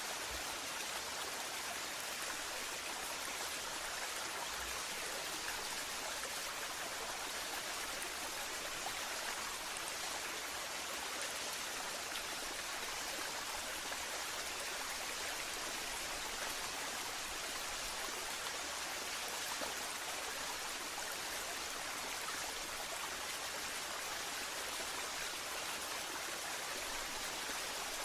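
Waterfall rushing steadily, an even hiss of falling and splashing water with no change over time.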